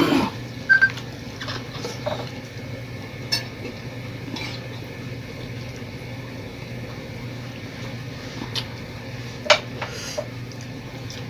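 Spoons and forks clinking and scraping against plates as people eat, in scattered single clinks, over a steady low hum.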